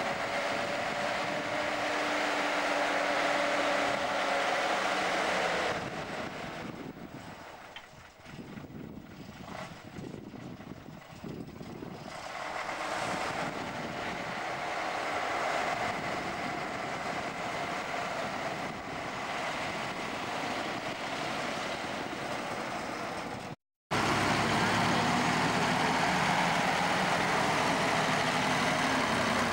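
Škoda ŠT 180 articulated tractor's diesel engine running as the tractor drives over grass silage, packing it down. The sound falls away for several seconds and comes back up, then cuts out briefly about 24 seconds in before returning loud and steady.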